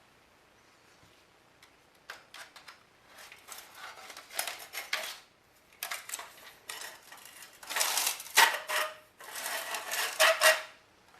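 Parts of a disassembled Philips CD-i unit being handled and pried apart, clicking and rattling in several irregular bursts after a quiet start, loudest near the end.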